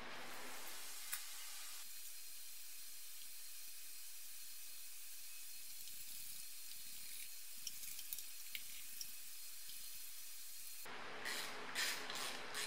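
Steady faint hiss, then, near the end, a cluster of light metallic clicks and taps from a hand tool working the rocker-cover bolts on a BMW M20 straight-six engine.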